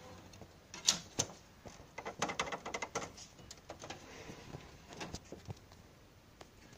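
Faint scattered clicks and taps: a sharp click about a second in, a quick run of small clicks between two and three seconds in, and a few more near five seconds.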